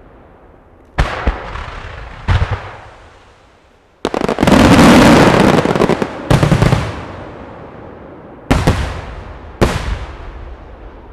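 Aerial firework shells bursting in a starmine display. Single booms come about one and two seconds in, then a dense, loud barrage of bursts and crackle runs for about two seconds. Three more booms follow, each trailing off in a long rolling echo.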